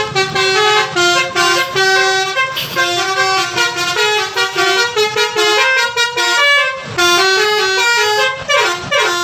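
Bus telolet horn, a multi-tone musical air horn, playing a loud tune of quick stepped notes over and over.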